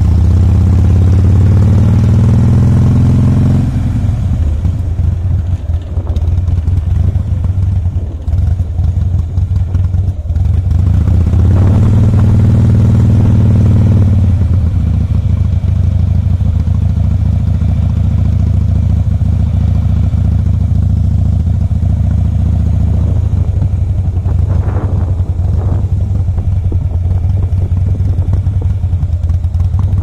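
2007 Harley-Davidson Softail Custom's Twin Cam 96 V-twin running under way: pulling hard at first, easing off for several seconds, then picking up again about twelve seconds in. Around the halfway point it drops to a steady, quieter low-speed run.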